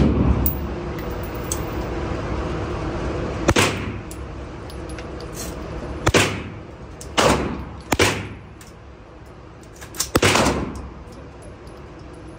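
Rifle shots at an indoor range: about six sharp reports, unevenly spaced, the last two close together near the end, each with a short echo off the range walls.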